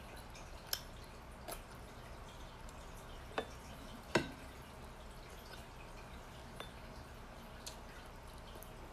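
Quiet eating with the hands: a handful of short, wet clicks from chewing, lip-smacking and finger-licking, the loudest about four seconds in, over a faint steady room hum.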